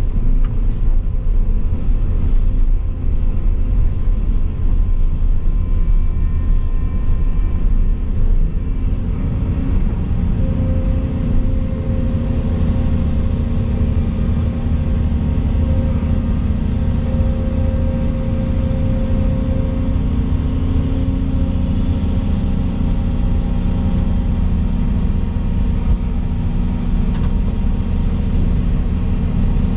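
Volvo EC220 crawler excavator's diesel engine running steadily under the cab, heard from inside the cab. About ten seconds in a steady hydraulic whine joins the rumble as the boom lowers a concrete slab hanging from the bucket on a chain. A short click comes near the end.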